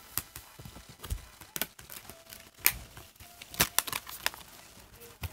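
Irregular clicks and rustles of close handling noise, a dozen or so sharp taps at uneven spacing, loudest about two and a half and three and a half seconds in.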